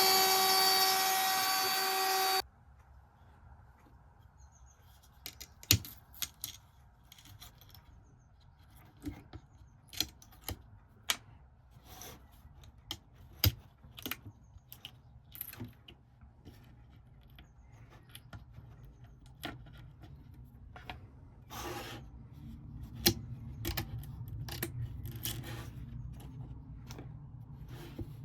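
CNC router running with a steady pitched whine that cuts off abruptly about two seconds in, followed by scattered sharp clicks and taps over a low hum.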